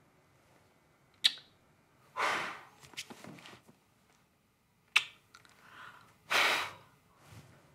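A girl blowing kisses: two sharp lip smacks about four seconds apart, each followed by a short breathy puff of air, with a few softer mouth clicks between.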